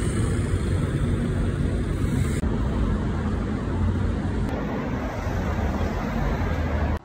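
Wind buffeting a phone's microphone: a loud, uneven low rumble that cuts off suddenly at the very end.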